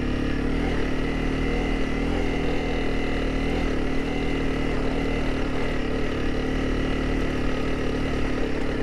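Honda CRF300 Rally's single-cylinder engine running steadily while the bike cruises at about 20 km/h.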